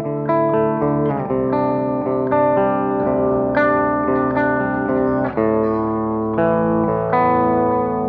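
Mensinger Birdy electric guitar played through a Boss ME-90 multi-effects unit: picked chords that ring out, the chord changing about every second.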